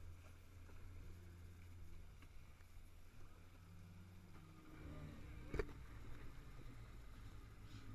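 Personal watercraft engine running at low speed, its pitch rising a little about four seconds in, with one sharp knock about a second later.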